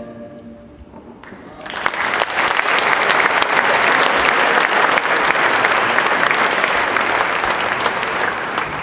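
Audience applauding: dense clapping starts about two seconds in, holds steady, and begins to die away near the end.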